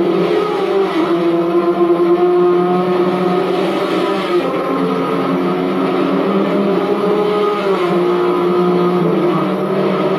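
Racing car engines running in a continuous drone, its pitch shifting up and down a few times.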